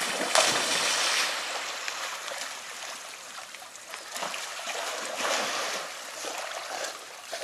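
A black Labrador retriever leaps into a pond with a big splash about half a second in, then swims and paddles, the water sloshing and splashing around it in uneven surges.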